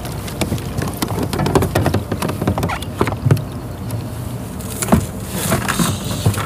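Irregular knocks, clunks and rustling of someone shifting about on a plastic pedal kayak (a Hobie Outback) and rummaging in its storage, with a denser patch of rustling about five seconds in.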